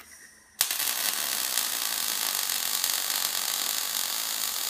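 EWM Picomig 180 Puls MIG/MAG welder striking a short-circuit arc on 2.5 mm steel sheet with pulse switched off. After a brief hiss, the arc starts suddenly about half a second in and crackles steadily and densely, the typical sound of a short arc.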